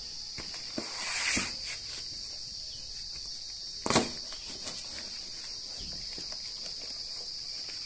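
Crickets chirring steadily in a high, even band, with a short rustle about a second in and one sharp knock about four seconds in as a curved blade is jabbed into the taped cardboard box.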